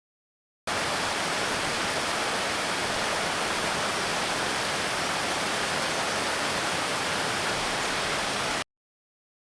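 Steady rushing water, an even hiss with no birdsong over it, cutting in abruptly under a second in and cutting off abruptly near the end.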